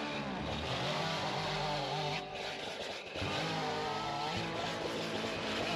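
Stihl 500i fuel-injected two-stroke chainsaw revving and cutting a felled tree trunk, its pitch rising and falling. The engine drops back briefly about two seconds in, then revs up again.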